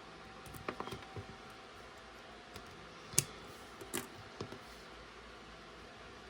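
Plastic LEGO pieces clicking and tapping as they are handled and fitted together, in scattered sharp clicks, the loudest one a little past the middle.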